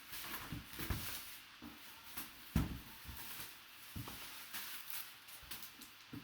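Plastic shrink wrap crinkling and being torn off a sealed cardboard box, with handling knocks, the loudest about two and a half seconds in.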